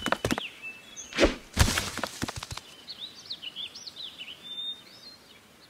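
A few sharp knocks, then a thump and two more knocks about a second in. These are followed by birds chirping in short, high, rising-and-falling notes.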